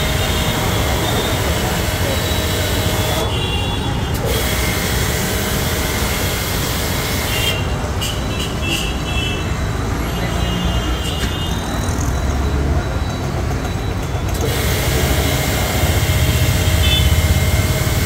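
Electric 3 HP high-pressure washer (160 bar, 13 LPM) spraying a hissing jet of water from its gun lance. The spray cuts out briefly about three seconds in, and again from about seven to fourteen seconds, then starts again. Street traffic rumbles underneath.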